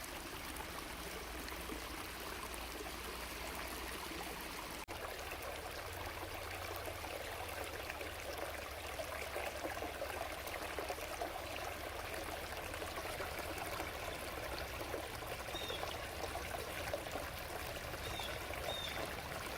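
Creek water flowing and trickling steadily over the streambed, with a few faint high chirps near the end.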